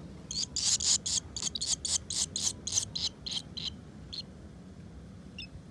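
Barn swallows at the nest giving a rapid series of short, high, scratchy calls, about four a second for some three seconds, then a few single calls. A low wind rumble runs underneath.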